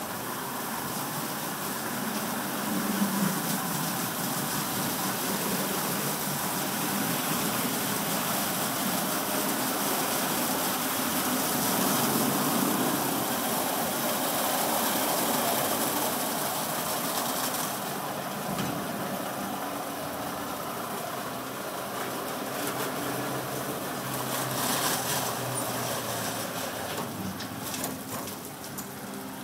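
Ceccato Ginga WD rollover car wash running, its rotating side and top brushes scrubbing a wet car: a steady swishing of bristles and water over the machine's motor drive. The high hiss eases a little about eighteen seconds in as the brushes move along the car.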